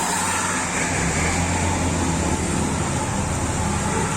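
Large tour bus's diesel engine running close by, a little stronger from about a second in, over steady traffic noise.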